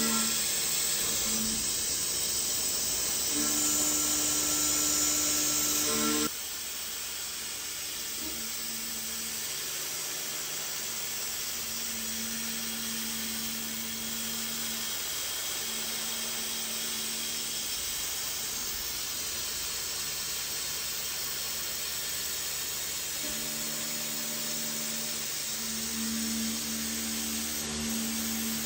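CNC milling machine spindle running an end mill through a clamp part held on a fourth-axis rotary, a steady whine and hiss of cutting. About six seconds in the sound drops suddenly to a quieter cut, with a low tone coming and going as the tool moves in and out of the material.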